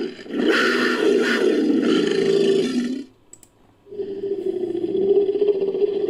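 Made-up sea-creature call for a fictional Orthoceras, mixed from pig sounds and a Proceratosaurus roar sound effect: a roar-like call that breaks off about three seconds in, then after a second's pause a second, steadier call.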